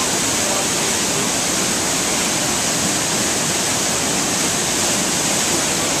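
Waterfall pouring into a rocky pool: a steady, even rush of falling and churning water.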